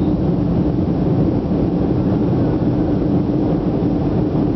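Boeing 757-200 cabin noise during the climb after takeoff: a steady roar of engines and airflow heard from a seat over the wing, with a steady low hum running through it.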